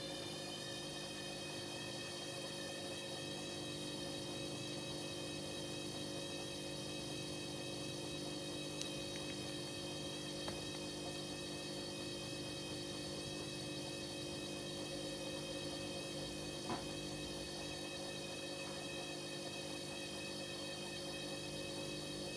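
Hoover H-Wash 300 washing machine running with a steady motor whine of several even tones over a low hum. A few faint clicks come about 9, 10½ and 17 seconds in.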